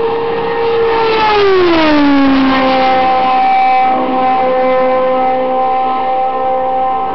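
A 2007 IndyCar's Honda V8 at racing speed going by. Its high, steady note drops in pitch over about a second and a half from about a second in as the car passes, then holds a lower note as the car moves away.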